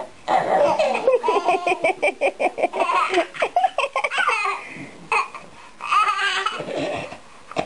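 Baby laughing in runs of quick, short, high-pitched bursts, several a second, with brief breaks between the runs.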